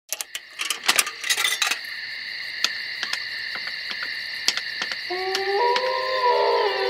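Old film-projector leader sound effect: crackle and pops of worn film over a steady high hum, with occasional single clicks. About five seconds in, sustained electronic tones begin, stepping up in pitch.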